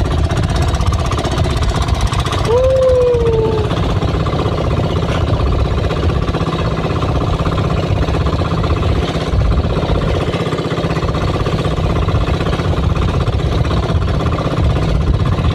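Small outrigger boat's engine running steadily under way, with a rapid, even knocking beat. A short falling tone sounds once, about two and a half seconds in.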